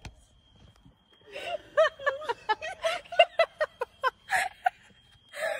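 A person giggling in a string of short, breathy bursts, several a second, starting after a brief quiet moment and trailing off near the end.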